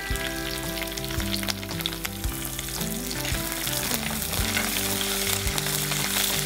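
A tempering of mustard seeds, urad dal, cumin, fenugreek and curry leaves sizzles in hot oil in a clay pot, with fresh coriander leaves just added, while a ladle stirs it.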